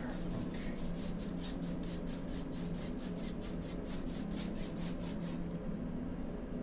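Paintbrush scrubbing acrylic paint onto a canvas: a quick run of short scratchy strokes, about three or four a second, that stops about five seconds in. A steady low hum runs underneath.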